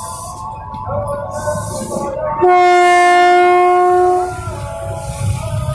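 Commuter electric train's horn sounding one long steady blast of almost two seconds, starting about two and a half seconds in, over a low rumble.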